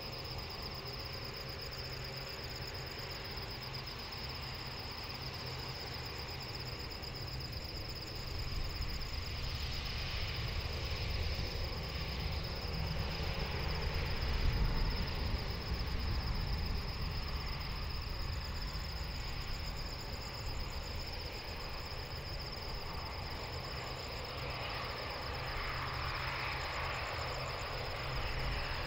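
Airbus A330neo's Rolls-Royce Trent 7000 jet engines running at taxi power, a low rumble and rush that swells about eight seconds in and again near the end, over a steady high chirring of insects.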